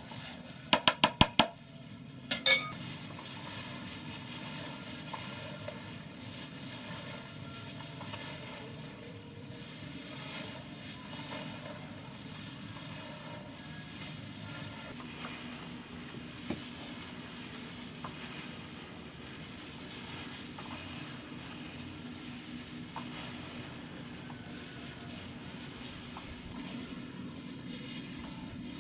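Ground pork and spice sausage mixture being kneaded and squeezed by gloved hands in a plastic basin: a steady wet squelching and rustling. Near the start, a quick run of sharp knocks as the metal spoon is handled in the basin, then two more a moment later.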